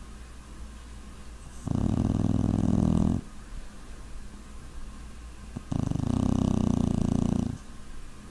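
A puppy snoring in its sleep: two long snores, each lasting about a second and a half to two seconds, spaced about four seconds apart.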